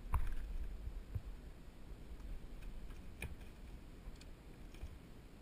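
A few sharp clicks and knocks from a baby tarpon being hauled by the line out of the water and swung up over a wooden dock: one at the start, one about a second in, and the loudest a little past three seconds, with fainter ticks between.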